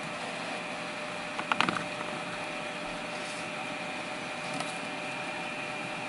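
Steady hum of fans or electronics with a few faint steady tones in it, and a short cluster of clicks and taps about a second and a half in as the hands handle the clear plastic printer housing.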